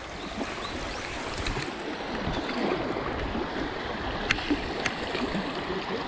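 Fast, shallow river water rushing and splashing around a stand-up paddleboard as it runs over a stony riffle, a steady rush, with two sharp ticks about half a second apart in the second half.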